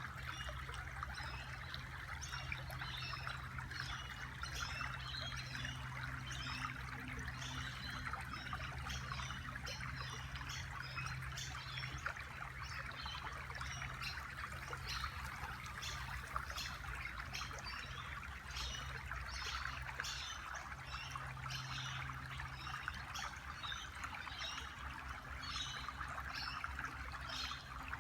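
Water trickling and splashing steadily in a small stream, with short high-pitched chirps repeating quickly over it and a low steady hum underneath.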